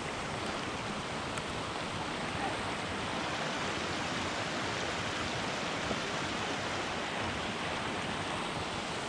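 Shallow mountain stream running over gravel and stones, a steady rushing hiss.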